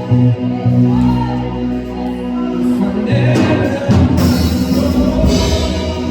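Live gospel music: singing over sustained chords and a bass line.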